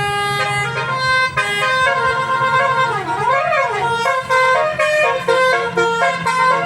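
Telolet basuri multi-tone bus horn playing a quick melody of stepped notes, with a siren-like swoop down and back up about three seconds in, over a steady low engine rumble.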